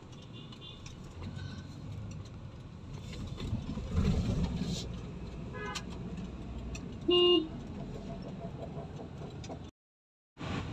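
Steady road and engine rumble inside a moving car's cabin, with a short car horn honk about seven seconds in, the loudest sound. The sound cuts out completely for about half a second near the end.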